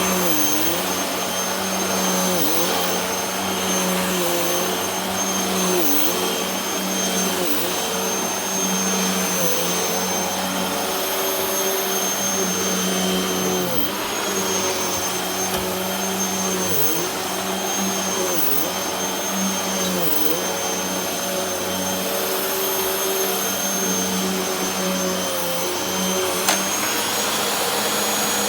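Hoover WindTunnel T-Series upright vacuum cleaner running steadily after a switch replacement, its motor pitch dipping briefly every second or two. A single sharp click sounds near the end.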